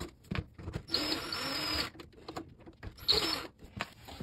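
Cordless drill-driver spinning out the small hex bolts that hold a refrigerator's water inlet valve. It runs for about a second starting about a second in and gives a short burst around three seconds, with small clicks and knocks of the bit and bolts in between.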